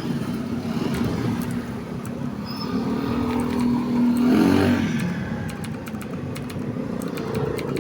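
A motor vehicle passing, its engine hum growing louder and bending in pitch about four seconds in, with scattered light clicks throughout.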